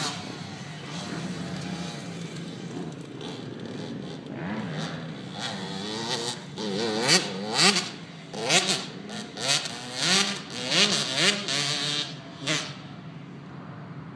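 Small KTM two-stroke youth dirt bike running around a motocross track, its engine revving up and down. From about halfway through it gets louder, with a quick run of rev-ups, each rising and falling in pitch, before it drops back near the end.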